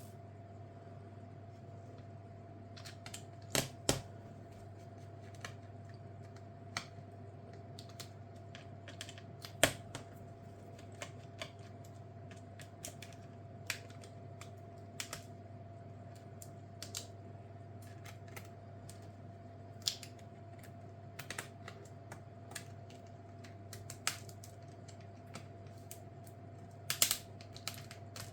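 Irregular small clicks and taps of tools and parts being handled while an HP EliteBook 1040 G4 laptop is taken apart, a few of them sharper and coming in quick pairs, over a steady low hum.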